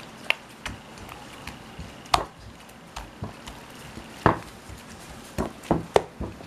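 Clear homemade slime of paper glue and borax being squeezed and pressed against a ceramic plate, giving irregular sticky clicks and pops. The louder pops come about two seconds in, about four seconds in, and in a quick cluster near the end.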